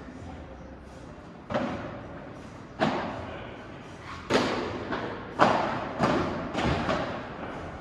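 Padel rally: the ball is struck by padel rackets and bounces on the court. The knocks come about a second apart at first, then quicker from about four seconds in, each one echoing in a large hall.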